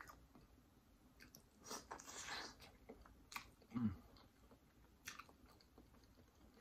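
Faint close-miked eating sounds: chewing and soft mouth clicks, with a longer wet, crunchy burst about two seconds in and a brief low throat sound near the middle.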